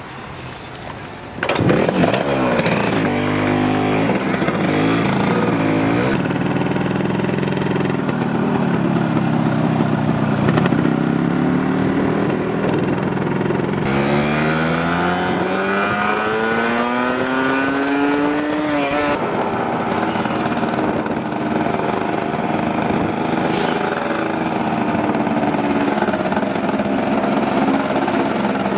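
Motorbike engine, which comes in loudly about a second and a half in and then runs under way, its pitch rising and falling with each acceleration. From about halfway there is one long climb in pitch that drops off suddenly, and then the engine runs more steadily.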